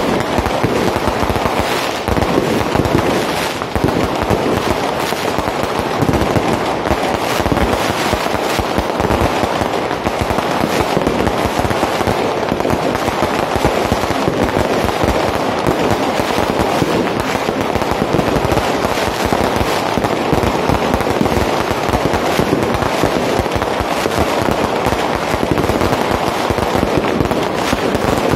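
Fireworks going off in an unbroken barrage of rapid crackling and popping, with no let-up.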